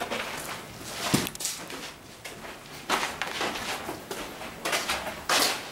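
Footsteps crunching and scraping over plaster and rubble debris on a floor, irregular steps with a sharp knock about a second in.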